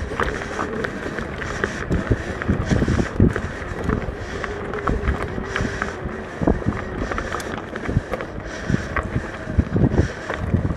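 Mountain bike being ridden along a dirt trail: wind buffeting the microphone, tyres rolling, and frequent short knocks and rattles from the bike over the rough ground.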